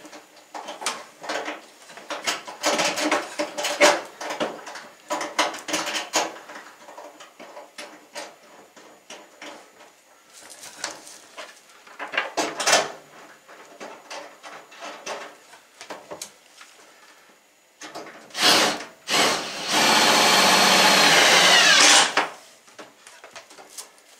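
Scattered knocks and clatter from handling the microwave against the cabinet. About three-quarters of the way in, a power drill runs steadily for about two and a half seconds and then winds down. It is tightening a mounting bolt down through the cabinet bottom into the top of the over-the-range microwave.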